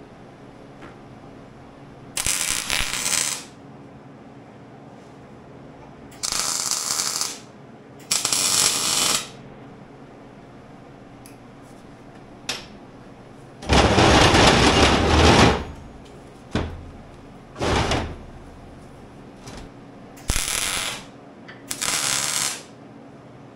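Electric arc welder laying a series of short tack and stitch welds on steel: about nine crackling bursts, each a second or less, with one longer weld of about two seconds near the middle.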